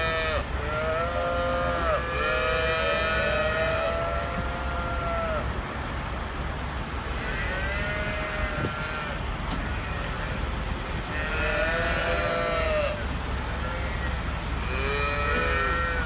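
Cattle mooing inside a loaded livestock trailer: several overlapping calls, each rising and then falling over a second or two, in bouts every few seconds with a quieter stretch in the middle. A steady low rumble from the semi truck's diesel engine runs underneath.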